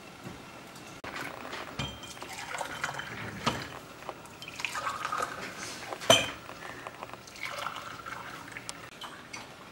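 Water poured from a kettle into a row of cut-glass tea glasses on a tray, filling one glass after another. Several sharp glass clinks come through the pouring, the loudest about six seconds in.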